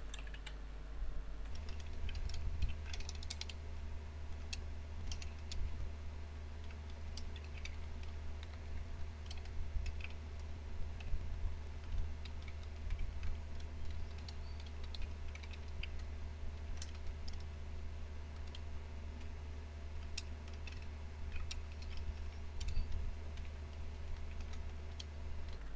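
Typing on a computer keyboard: irregular runs of keystroke clicks. A steady low hum comes in just after the start.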